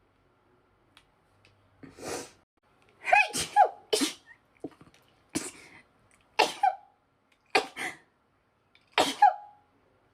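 A woman's sneezing fit: about seven sneezes in quick succession, some coming in close pairs, each a sharp voiced "achoo".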